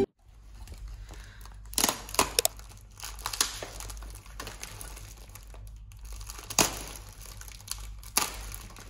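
Intermittent crinkling and rustling with several sharp clicks and crackles scattered through, over a low steady hum.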